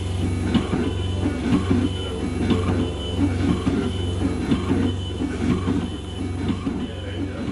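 Dentsply Sirona inLab MC XL dental milling unit grinding a restoration block under water coolant. Its spindle motors run with a low hum and a high whine that cuts in and out about twice a second as the burs work.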